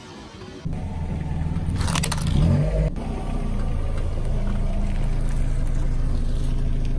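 Car engine running at low speed as the car creeps forward, a steady low rumble that starts about a second in. A short crackling burst comes about two seconds in.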